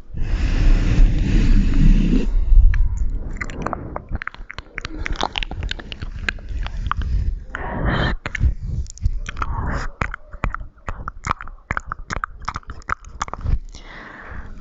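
Close-up ASMR mouth sounds: a loud rustling noise for about the first two seconds, then a dense, irregular run of wet clicks and smacks, several a second.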